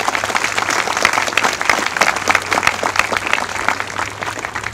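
Audience applauding: many people clapping together, dying away near the end.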